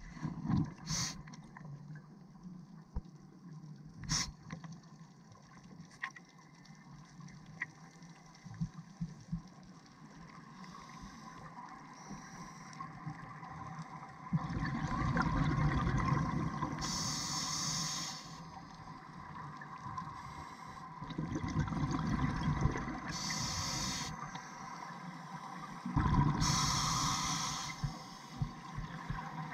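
A scuba diver breathing through a regulator underwater: three long bubbling rushes of exhaled air from about halfway in, each joined by a brief high hiss. Before them is a quieter stretch with a few sharp clicks.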